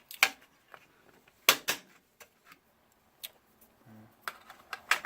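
A handful of sharp, separate clicks and taps of small hard parts being handled and set down on a work surface, with short quiet gaps between them.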